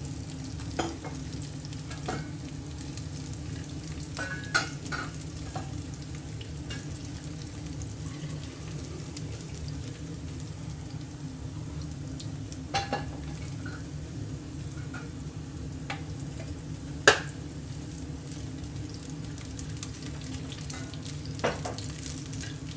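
Garlic and ginger slices sizzling in hot black sesame oil in a pot, left to brown. A plastic ladle stirs them and knocks sharply against the pot a few times; the loudest knock comes about seventeen seconds in.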